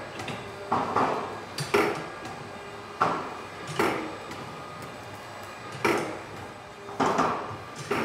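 Metal clanking: about eight sharp knocks at uneven spacing, each ringing briefly, as a wide steel band saw blade is handled on its stands at the saw filer.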